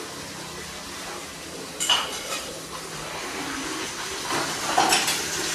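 Metal dishes and pots clattering and clinking: one sharp ringing clink about two seconds in and several more clatters near the end, over a steady hiss.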